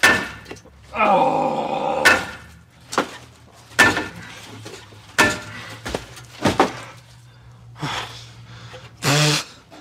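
A rusted car muffler being worked loose from the exhaust: a string of sharp metal knocks and clanks a second or so apart, with a louder clunk near the end as the muffler comes down.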